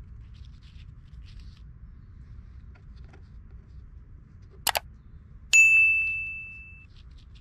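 Subscribe-button sound effect: two quick mouse clicks a bit past halfway through, then a single bright notification-bell ding that rings out and fades over about a second.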